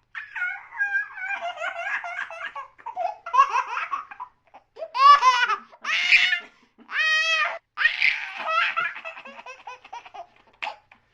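A baby laughing: quick, bubbling giggles at first, then four long, high-pitched belly laughs about a second apart from about five seconds in, easing back to short giggles near the end.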